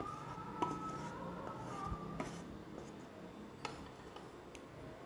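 Soft background music with a few held notes that fade out after about two seconds, leaving a quiet hush broken by a few faint clicks.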